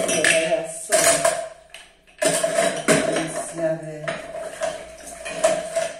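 Drinking glasses being picked up off a stainless-steel sink draining board, clinking against each other and the metal in several separate knocks.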